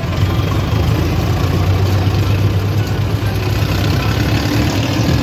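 Diesel tractor engine running steadily, heard from the driver's seat close to the upright exhaust stack: a deep, even drone.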